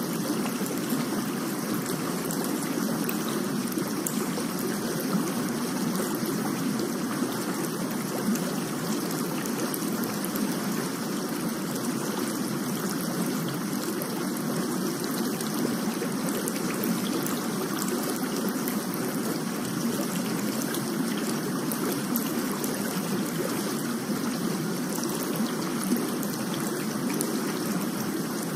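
Steady rain sound: an even, continuous rushing of water with no breaks or changes in level.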